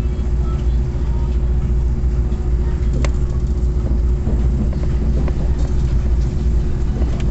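Passenger train running along the track, heard from inside the carriage: a steady heavy rumble with a constant hum and a few sharp clicks, the sharpest about three seconds in.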